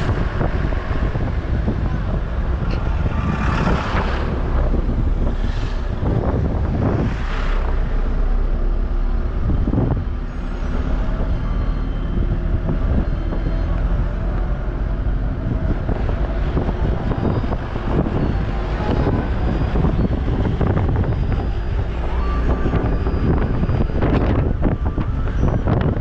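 A road vehicle driving, with a steady engine and road rumble and wind buffeting the microphone.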